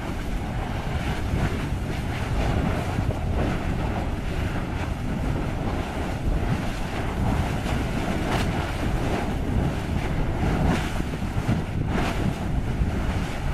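Lava lake churning and spattering: a steady surf-like rushing with a few sharper bursts, one about two-thirds of the way through and one near the end. Wind buffets the microphone.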